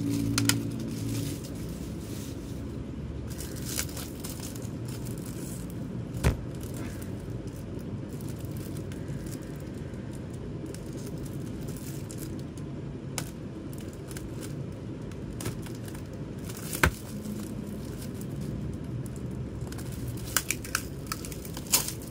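Plastic wrap and tape crinkling and tearing as they are picked and cut off CD jewel cases with a small craft knife, with a few sharp clicks of the plastic cases being handled, a cluster of them near the end. A steady low hum runs underneath.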